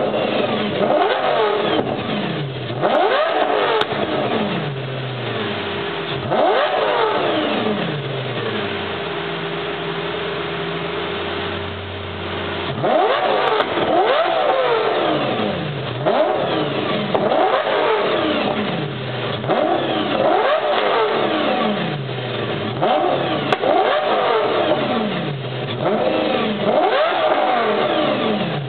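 Lamborghini Gallardo V10 blipped while standing through a new Fluid Motor Union exhaust. Each rev rises sharply in pitch and falls back within a second or two. After a few revs it settles to a steady idle for several seconds, then is revved again about every one and a half seconds until the end.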